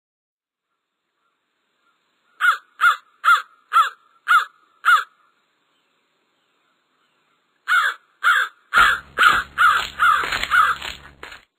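Crow cawing: six harsh caws about half a second apart, a pause, then from about eight seconds a louder, denser run of caws over a low background rumble.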